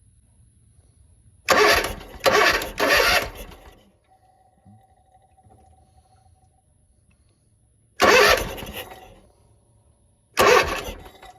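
Zero-turn mower engine cranked on its starter in short bursts, three quick tries in a row and then two more single tries, stopping each time without catching: a crank-no-start.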